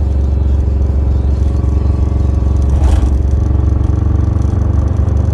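1968 Camaro V8 with a chambered exhaust running steadily under way, a deep even rumble, with a short burst of noise about three seconds in.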